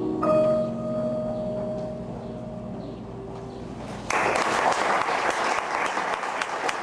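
Grand piano's final chord struck and left to ring, dying away over about four seconds; then an audience bursts into applause, which keeps going.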